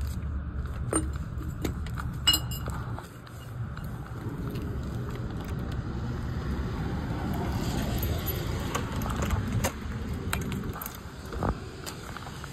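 Metallic jingling and scattered clinks with rustling handling noise and footsteps, over a steady low street rumble; a sharp metallic click rings out about two seconds in.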